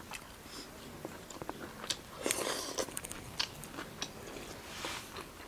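Close-miked chewing of a meal of rice and chicken curry: wet mouth clicks and smacks with a few short crunches.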